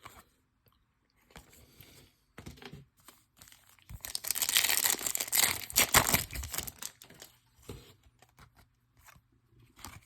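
A foil trading-card pack being torn open and crinkled: a loud crackling tear lasting about three seconds in the middle, with softer rustling and ticks of wrapper and cards being handled before and after.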